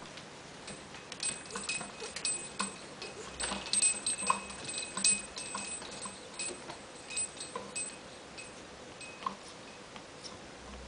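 Irregular light clicks and small metallic tinkles from an African grey parrot playing, busiest in the middle few seconds.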